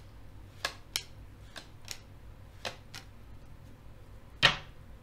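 Tarot cards handled in the hands, giving short sharp clicks and snaps: about six light ones over the first three seconds and a louder one about four and a half seconds in, over a low steady hum.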